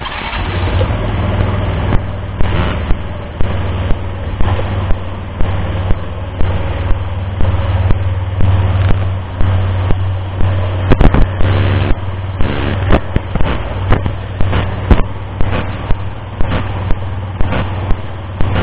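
Car cabin road and engine noise picked up by an AMA S780 dashcam's microphone, broken by sharp pops about one or two a second at uneven spacing. The pops are a recording fault in the dashcam, not a sound in the car.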